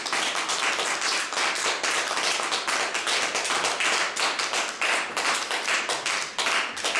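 A small audience applauding: a dense stream of separate hand claps.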